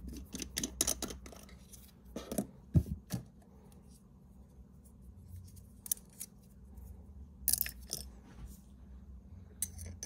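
Scattered small clicks and taps with soft rubbing from handling a glass ink bottle and a plastic syringe: the bottle's screw cap being unscrewed and set down, and the syringe readied to draw ink.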